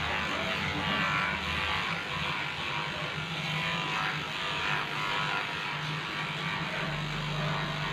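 Electric pet-grooming clippers running steadily with a constant motor hum as the blade shaves through a dog's matted coat.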